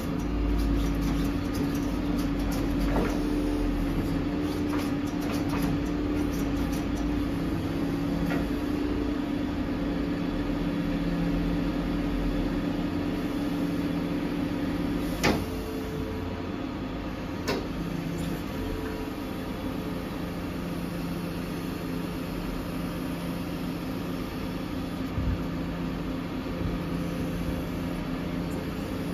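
Volvo FE 320 lorry engine running steadily to drive the HIAB XDUO 128 loader crane's hydraulics, a constant hum with a steady whine that eases off partway through as the crane sets down a timber pack, opens its grab and lifts away. Two sharp knocks about two seconds apart come just past halfway.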